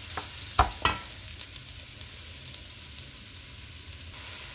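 Raw rice frying in spiced oil and sauce in a non-stick pan, sizzling steadily while a wooden spoon stirs it. The rice is toasting dry, before any water is added. The spoon knocks against the pan a few times in the first second, loudest twice close together.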